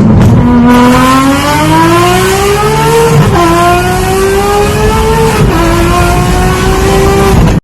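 Performance car engine accelerating hard through the gears: the pitch climbs, drops at an upshift about three seconds in, climbs again, and drops at a second upshift about five and a half seconds in.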